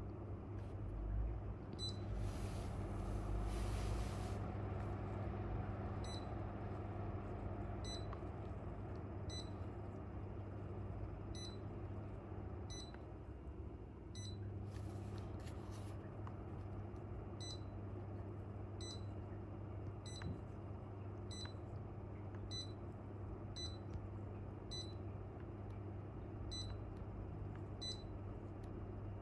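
Corona CW-16A4 window air conditioner running with a steady low hum, with short high beeps repeating every second or two from about six seconds in. A brief hiss comes near the start and again around the middle.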